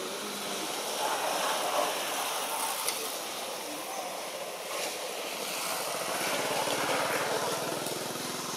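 Steady rushing outdoor background noise, an even hiss with no distinct events.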